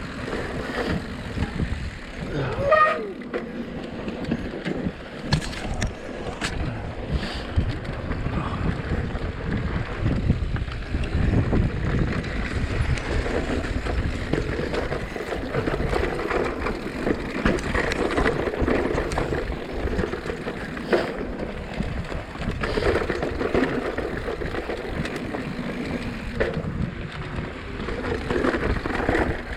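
Mountain bike riding over a rough dirt trail: tyres crunching on dirt and rock, with the bike rattling and clattering over bumps and wind buffeting the microphone.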